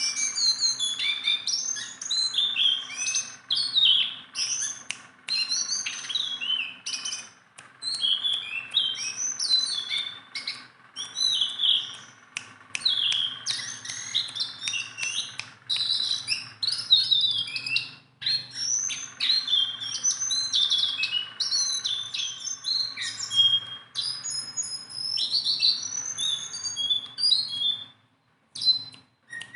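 A jongkangan songbird singing a continuous run of quick, varied whistled and chirped phrases, with a short break near the end. This is the bird in full, active song, what keepers call 'gacor'.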